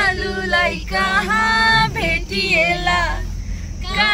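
Several people, women and a man, singing a song together in held, drawn-out phrases inside a moving jeep, with the vehicle's low rumble underneath.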